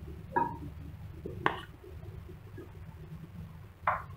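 A few soft knocks and a sharp click as butter is dropped from a spoon into an empty non-stick pan, over a low steady hum.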